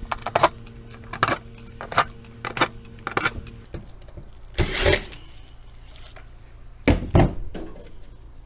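Metal clicks and clinks of a spanner working the fasteners on a fridge's rear panel, several sharp knocks in the first few seconds, then two longer rattles, one about halfway through and one near the end.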